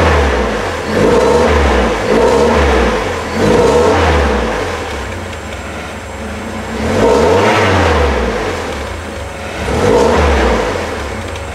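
A 1981 Alfa Romeo Spider Veloce's twin-cam four-cylinder engine revving through its stock exhaust, heard at the tailpipe. It gives four quick blips of the throttle, then two slower, longer revs in the second half.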